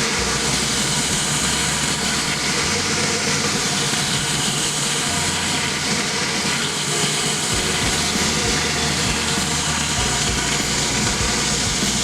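Pressure washer running: a steady, loud hiss of spraying water and machine noise, with low tones underneath that shift every second or two.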